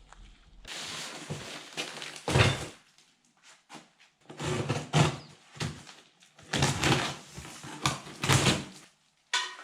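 A string of irregular knocks, thuds and scraping from objects being handled and set down, loudest a heavy thump about two and a half seconds in.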